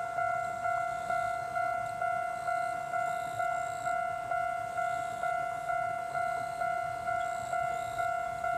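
Japanese railroad level-crossing warning bell ringing its steady 'kan-kan' alarm, a repeated two-note ring at about two strikes a second, each strike fading before the next.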